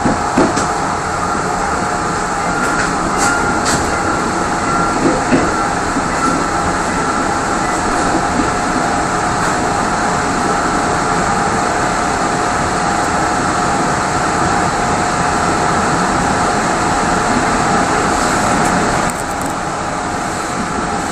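Passenger coach of a locomotive-hauled Mugunghwa train running, heard from inside at its rear window: a steady rolling rumble with a steady high hum, and a few sharp wheel clicks over the points in the first few seconds. The noise drops a little near the end.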